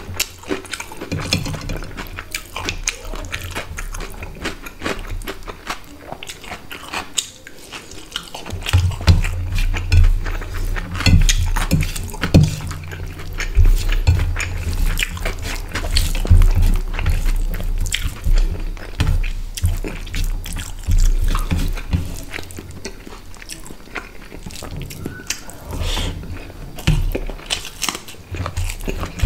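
Close-miked eating sounds: wet chewing and lip smacks on mouthfuls of rice and hilsa fish curry, with fingers mixing rice on a steel plate, many quick clicks and smacks throughout.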